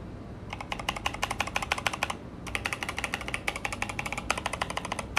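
Mechanical keyboard being typed on: a fast run of keystroke clacks, with a short pause about two seconds in before the typing resumes.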